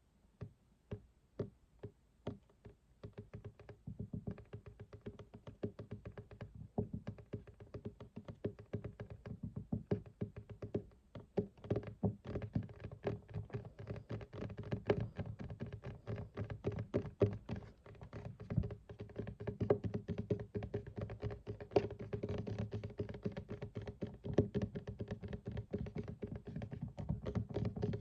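Fingertips and nails tapping on a desk: a few separate taps at first, then rapid, continuous tapping from about three seconds in, growing louder near the middle.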